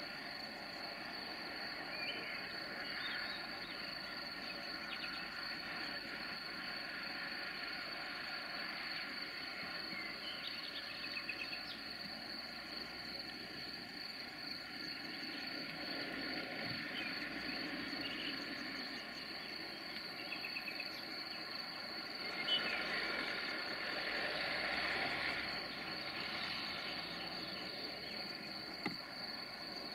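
Crickets trilling in one steady, high, continuous tone, with scattered short chirps over it.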